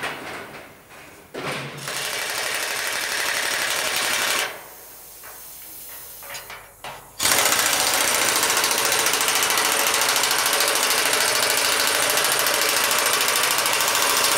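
Hand-held pneumatic tool hammering rapidly as superheater elements are fastened to a steam locomotive's superheater header. It runs for about three seconds from a second and a half in, stops, then starts again about seven seconds in and runs on steadily.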